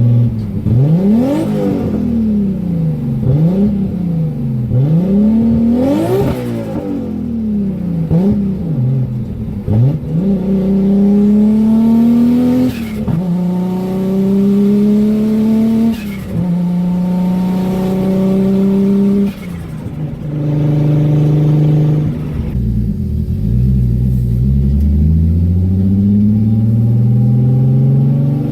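RB26 twin-cam straight-six with a single turbo and no muffler, revved in a string of quick throttle blips, then pulling up through the gears: the revs climb in each gear and drop at three shifts, with a short turbo flutter as the throttle lifts. Near the end the revs fall away and another pull begins. The pulls are held to part throttle because the fuel injectors are at their limit.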